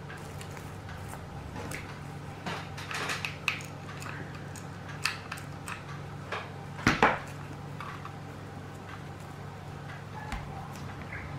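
Handling of a wired ribbon bow and a hot glue gun on a tabletop: scattered light clicks, taps and rustles, with a sharper double knock about seven seconds in, over a low steady hum.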